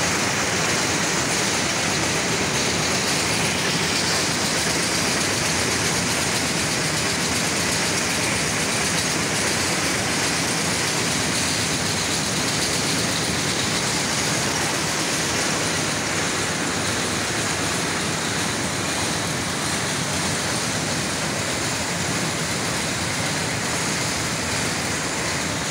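Jute mill processing machines running: a loud, steady, unbroken mechanical noise.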